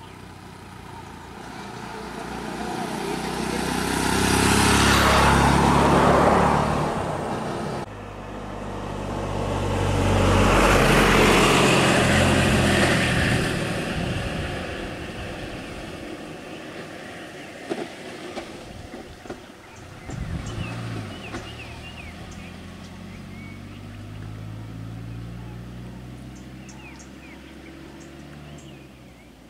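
Motor vehicles driving past close by, engine noise swelling and fading as each goes by, the loudest about 5 and 11 seconds in. Later a vehicle engine runs at a lower level, slowly getting louder, with a few knocks and short high chirps.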